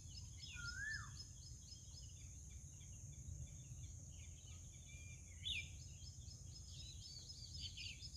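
Faint outdoor ambience: birds calling, with one whistled rise-and-fall note just under a second in and high chirps about five and a half seconds in and again near the end. Under it are a steady high drone and a low rumble.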